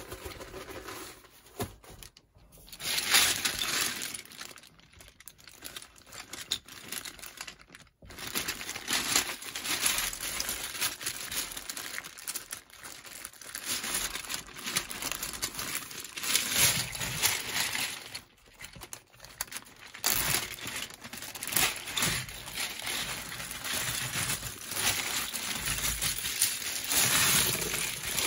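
Plastic packaging crinkling and rustling as it is handled, in irregular bursts with short quiet gaps.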